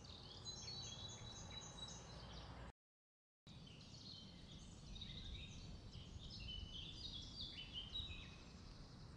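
Faint birdsong outdoors: many quick, short chirps and trills from small birds over a low steady rumble, the sound cutting out completely for under a second about three seconds in.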